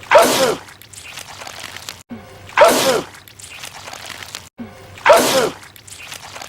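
A man sneezing loudly three times, about two and a half seconds apart: the same movie sneeze repeated in a loop, with a brief cut to silence just before each one.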